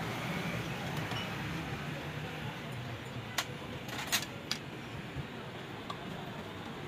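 A handful of sharp metallic clinks around the middle, over a steady low hum.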